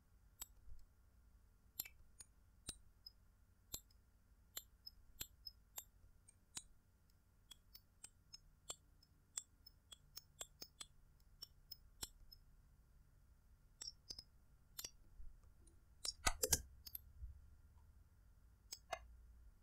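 Faint, irregular clicks of the computer input device used to push and reshape the strokes, about two a second, with a quick flurry of clicks about sixteen seconds in.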